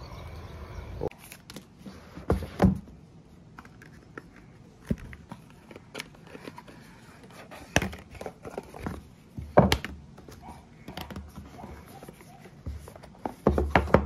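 Cardboard box of a Samsung M13 5G phone being opened and handled on a table: scattered thunks and clicks of the lid, box and phone, with light rustling of packaging. The sharpest knocks come about a second and a half in, twice near the middle and just before the end.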